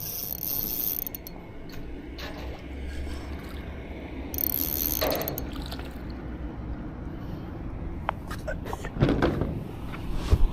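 Spinning fishing reel being wound, its gears and pawl giving a ratcheting mechanical sound, with two brief hissy bursts.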